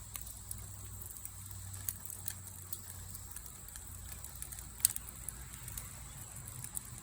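Faint scattered clicks and light metal rattles from tongs lifting grilled chicken wings off the kettle grill's grate, over a low steady hum, with one sharper click about five seconds in.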